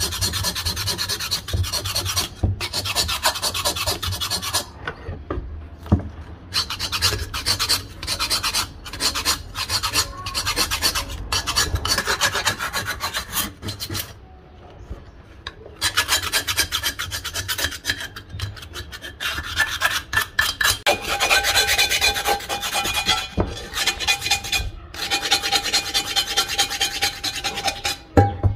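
A knife blade scraping rust and old crust off the outside of an antique cast-iron pot, in rapid rasping strokes with a couple of short pauses. In the later part a steady ringing tone runs under the scraping.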